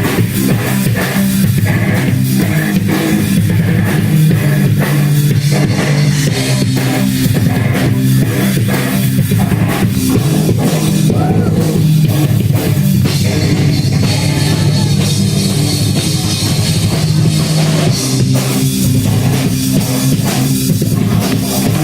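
Heavy metal band playing: guitars and bass over steady, fast drum-kit beats, loud and unbroken.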